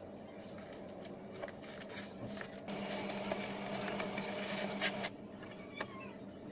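Handling sounds of a plywood motor mount pressed against a thermocol foam fuselage and a small brushless motor fitted to it: light rubbing and tapping, a steady hum through the middle, and a few sharp clicks about five seconds in.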